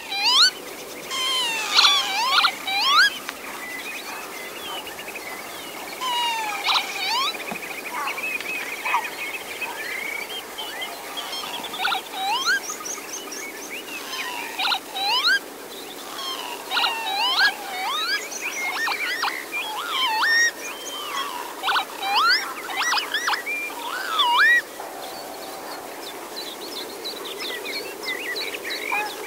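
Northern lapwings calling again and again, with many slurred, swooping calls that rise steeply and overlap through the whole stretch. A fast trill of repeated notes runs under them from about six to ten seconds in.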